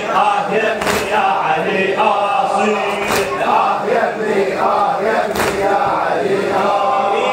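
Male voices chanting an Arabic Muharram latmiyya lament for Husayn, led by a reciter on a microphone, with a sharp slap in unison three times, about two seconds apart, as mourners beat their chests (latam) to the rhythm.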